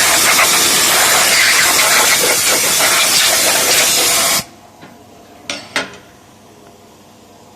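A loud steady hiss that cuts off suddenly after about four and a half seconds, followed about a second later by two short hisses.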